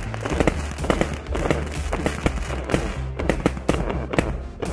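New Year's fireworks going off overhead in a rapid run of bangs and crackles, several a second, with background music and its bass line playing underneath.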